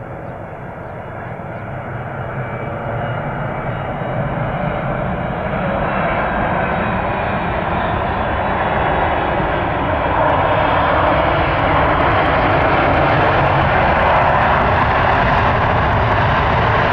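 Emirates Boeing 777-300ER's GE90-115B jet engines during landing, growing steadily louder as the airliner touches down and rolls closer, then holding loud from about ten seconds in.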